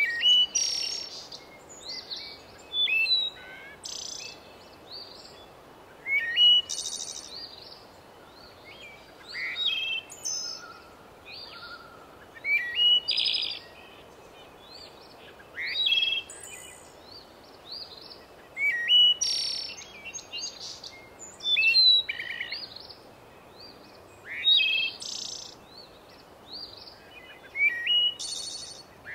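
A songbird singing short bursts of chirps and whistles every few seconds. Under it runs a steady hiss of oil frying in the pot.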